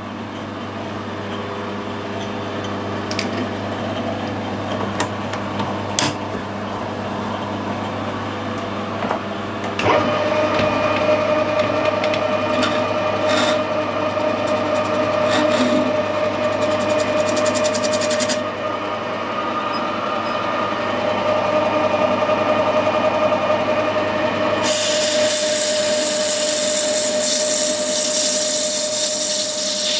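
Metal lathe starting up about a third of the way in and running with a steady whine, after a few knocks of handling at the machine. Near the end a hissing cut joins as the turning tool faces the end of a bronze bar.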